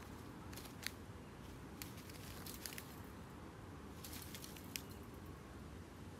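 Faint scattered clicks and crackles, like light handling or rustling, over a low steady hum.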